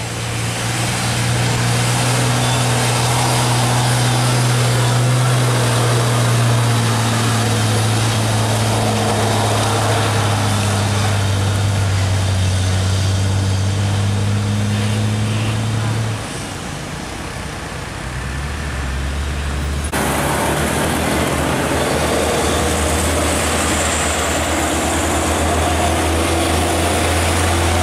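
Heavily loaded Isuzu Giga FVM diesel truck labouring up a steep bend in a low gear, its engine note steady and deep before dropping away about sixteen seconds in. A second heavily loaded diesel truck, a Hino, then comes up the climb straining, with a lower steady engine note.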